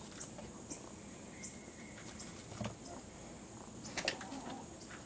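Faint outdoor ambience: a steady high-pitched insect drone, with a few short falling bird chirps in the first second and a half and scattered light clicks.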